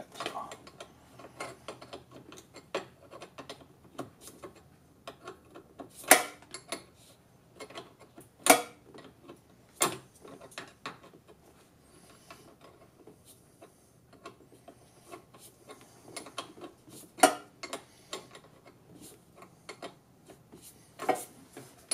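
Small metallic clicks and ticks from hand tools working a nut and ring terminal onto a golf cart battery terminal post, broken by a handful of louder sharp clacks.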